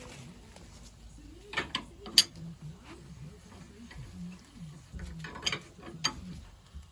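Small metal pump parts and tools clicking and clinking during hand reassembly of a Lister fuel and oil pump: a few sharp clicks, the loudest about two seconds in, then a cluster about five seconds in.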